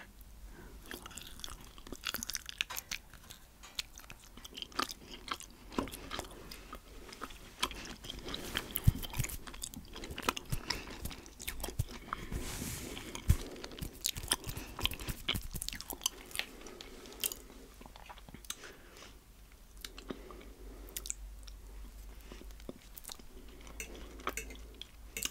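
A person chewing food close to the microphone, with irregular crunches and wet mouth clicks.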